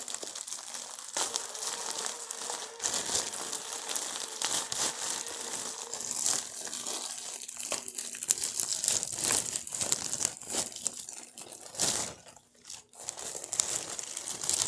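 Mail packaging crinkling and rustling as it is handled and pulled at to open it, a dense irregular crackle that pauses briefly twice near the end.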